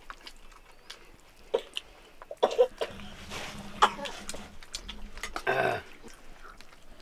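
A person coughs once near the end, after a few scattered small clicks.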